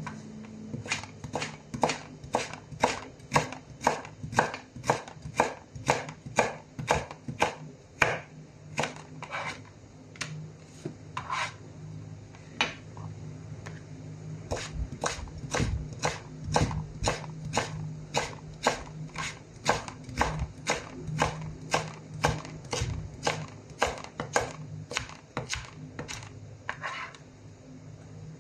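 Chef's knife slicing a firm orange vegetable into thin ribbons, each stroke knocking sharply on the cutting board in a steady run of about two to three cuts a second, with a short slower patch near the middle.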